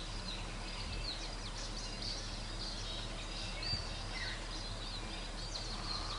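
Forest ambience: many small birds chirping and calling, over a steady low hum, with a single thump a little past halfway.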